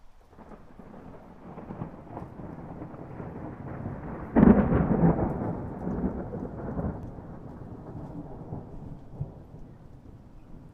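A thunderstorm: thunder rumbles low and builds, breaks into a sudden loud clap about four seconds in, then rolls on and slowly fades, with rain falling.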